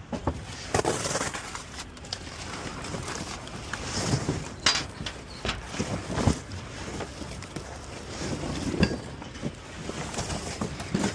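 Irregular knocks, thuds and scraping over outdoor noise: junk being pulled and thrown off a trailer.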